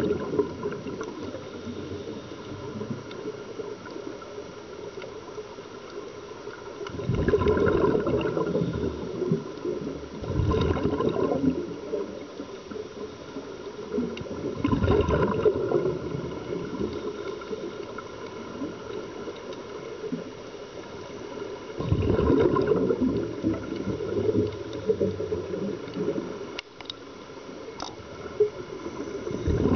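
Scuba regulator breathing underwater: bursts of exhaled bubbles gurgle past the microphone about every four to seven seconds, with a quieter watery background between breaths.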